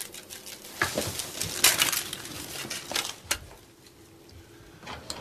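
A few sharp clicks and knocks, with a short hissing rustle about two seconds in.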